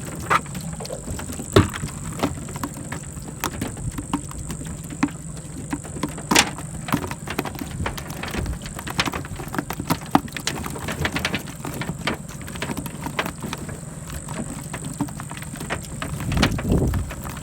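A motor running steadily under frequent small clicks and rattles, with a louder knock about a second and a half in and another about six seconds in.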